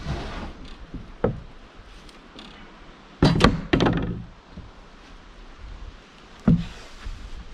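Heavy wooden log being handled and set down: several dull wooden knocks and thumps, the loudest cluster about three seconds in and another near the end.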